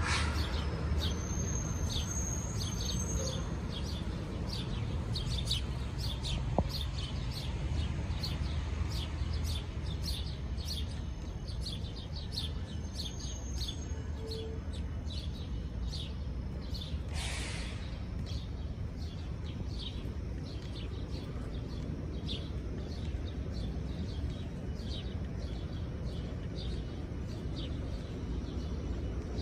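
Small birds chirping over and over, short high chirps about once a second, over a steady low rumble of outdoor background noise, with a brief hiss about seventeen seconds in.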